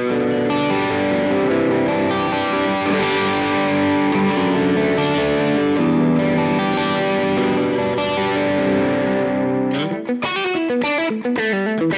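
Electric guitar played through a Line 6 POD X3 Live's overdrive preset: long held, distorted chords and notes, then about ten seconds in a quick run of single picked notes.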